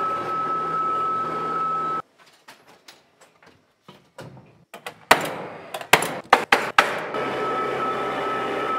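Electric scissor lift running, a steady motor hum with a high whine, stopping about two seconds in and starting again near the end. In between, a quick run of sharp knocks.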